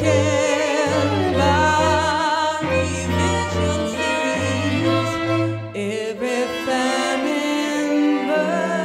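A woman singing with a wavering vibrato over a string quartet, whose bowed violin and cello hold long notes beneath her. The low cello line drops out about six seconds in.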